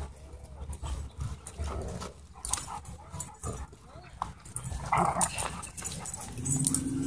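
Dogs vocalizing during rough play: short whining sounds with scuffling and knocks, and a steadier low sound coming in near the end.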